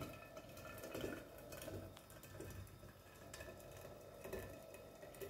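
Faint trickle of water poured from a metal kettle into the narrow steel neck of a thermos flask, with a few light ticks.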